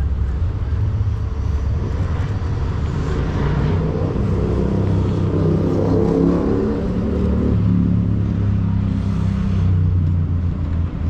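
City street traffic: a steady rumble of vehicles, with one motor vehicle's engine passing closer and louder from about four to eight seconds in.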